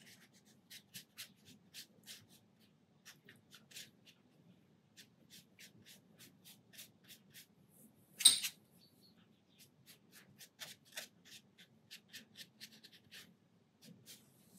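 Round synthetic watercolour brush dabbing and flicking paint onto textured paper: quick, light scratchy strokes, several a second, in short runs, as grass tufts are painted in. One louder, sharp tap comes about eight seconds in.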